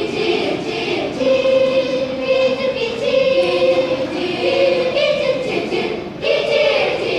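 Primary school children's choir singing in parts, holding long sustained notes that move together.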